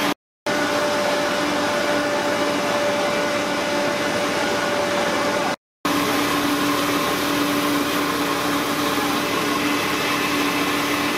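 Fire engine's pump and engine running steadily with a constant hum, breaking off twice for a moment.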